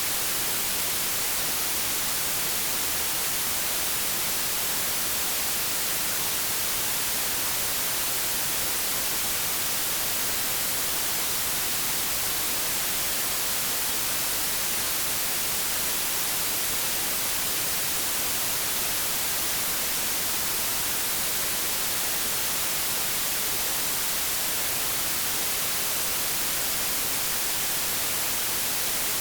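Steady white-noise static, TV or radio style hiss, even and unchanging, with its energy weighted toward the high end.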